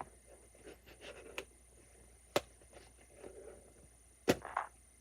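Hands handling a small toy and its packaging: faint rustles and taps, a sharp click about halfway through and a louder knock with rustling near the end.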